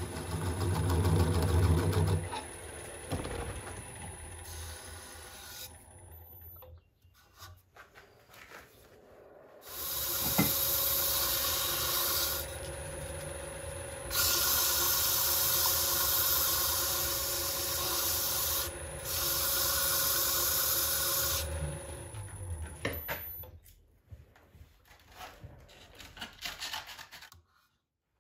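A wood lathe turns a birch goblet while a gouge cuts briefly, then abrasive rubs against the spinning wood in three hissing sanding passes of a few seconds each. Near the end the lathe is stopped, leaving a few light handling clicks.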